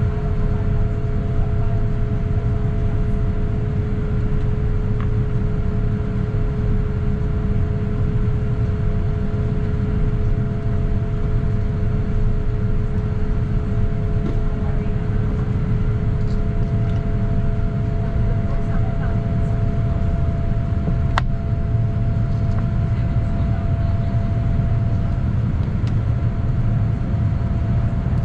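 Boeing 787-9 cabin noise in the climb after takeoff: a steady, loud rumble of the General Electric GEnx engines and airflow past the fuselage, with two faint steady tones. One tone drops out with a single sharp click about three-quarters of the way in, and the other stops a few seconds later.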